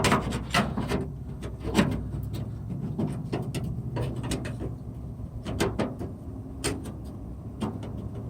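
Irregular clicks and knocks of a sheet-metal patch panel and tools being handled, a few sharper knocks among quieter handling, over a low steady hum.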